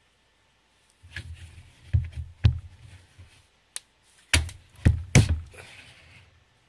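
Blackhawk Serpa polymer holster knocking and thudding against a wooden workbench as a dagger stuck through it is worked free, with scraping of blade on plastic between the knocks. There are five sharp knocks among softer ones, in two clusters about two seconds apart.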